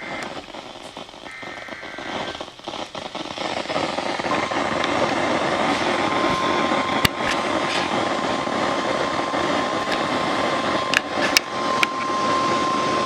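Weather-radio broadcast under heavy static hiss with scattered crackles, the static swelling a few seconds in. Faint short data tones sound near the start. From about halfway through, a steady warning alert tone holds under the static, marking the start of a new warning broadcast.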